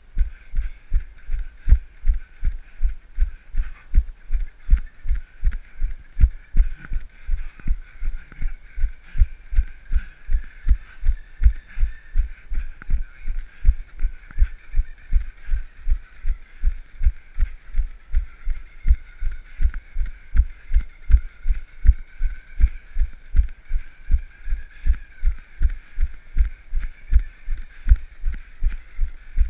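Steady low thuds with each running stride, about three a second in an even rhythm, with a faint steady whine behind them.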